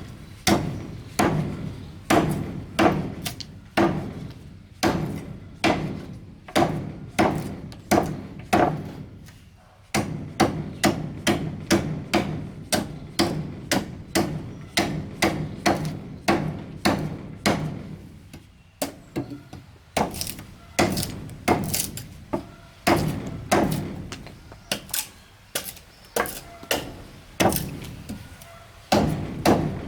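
A hammer striking wood in steady repeated blows, about two to three a second, with a few short pauses between runs of strokes.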